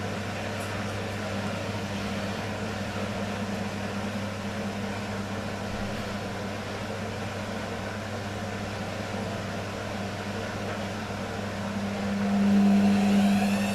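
Washing machine motor turning the drum with a steady hum; near the end it gets louder and a rising whine sets in as the drum speeds up.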